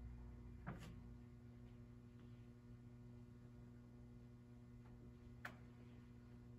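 Near silence: room tone with a steady electrical hum, and two faint brief noises, one just under a second in and one about five and a half seconds in.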